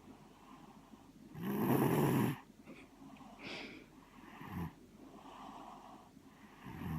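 Snoring: one loud snore lasting about a second, starting about a second and a half in, then quieter breathing with shorter snores near the middle and at the end.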